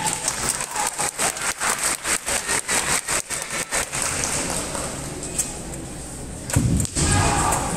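Kendo bout in a large hall: a quick, even run of sharp clicks, about eight a second, for the first four seconds, then loud kiai shouts from the fencers near the end.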